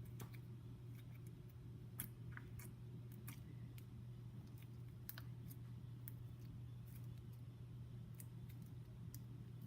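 Homemade glue-and-borax slime being mixed and handled in a bowl: scattered small sticky clicks at irregular intervals, over a steady low hum.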